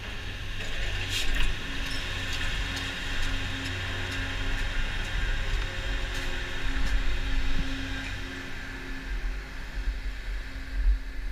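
Skis sliding over groomed snow in a steady hiss, with wind rumbling on the camera's microphone.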